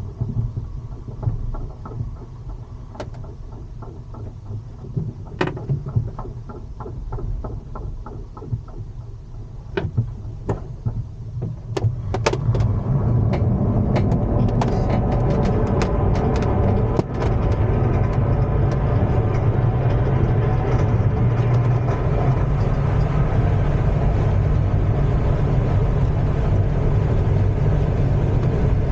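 Aerotow takeoff heard from inside an ASK-21 glider's cockpit. The tow plane's engine drones steadily, and the glider's airframe gives sharp clicks and knocks during the ground roll. About twelve seconds in, the sound rises to a steady loud rush of airflow and engine as the speed builds.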